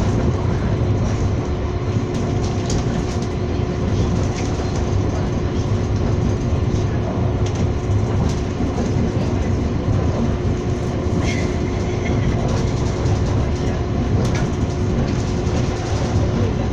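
Running noise of a moving Serbian Railways passenger train heard from inside the carriage: a steady low rumble with a constant hum, broken by a few sharp clicks from the wheels over the rails.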